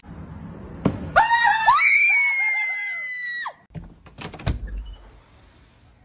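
A sharp knock, then a long high-pitched scream that rises and holds for about two seconds. A door bangs a couple of times about four and a half seconds in.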